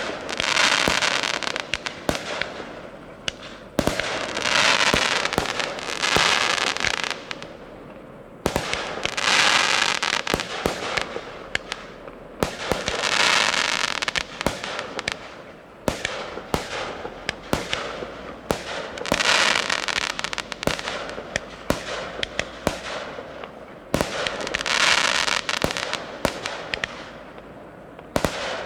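Professional fireworks display: sharp bangs go off throughout. Every few seconds there is a stretch of dense crackling hiss lasting two or three seconds.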